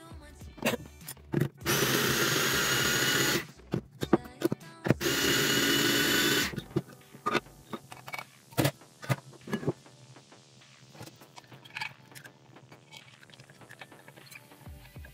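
Electric mini chopper running in two bursts of about a second and a half each, its blade whirring through food in a glass bowl. Afterwards come clicks, knocks and scraping as the bowl is opened and the chopped food is scraped out with a spatula.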